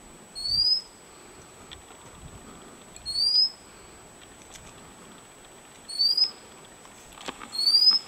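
White-capped redstart calling: a thin rising whistle, given four times a few seconds apart.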